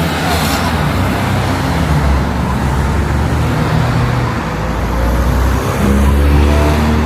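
A vehicle running: a steady, loud rumble of motor and travel noise, its low engine tones shifting in pitch about five or six seconds in.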